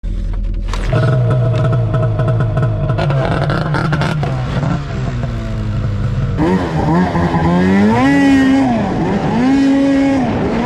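Arctic Cat M800 snowmobile's 800cc two-stroke engine running through a BMP aftermarket exhaust can, being revved. In the second half the revs rise and fall in repeated blips.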